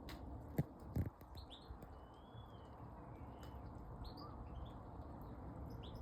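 Goldfinch calling in scattered short, high chirps, with one longer arching note about two seconds in, over a faint low background rumble. Two sharp knocks in the first second are the loudest sounds.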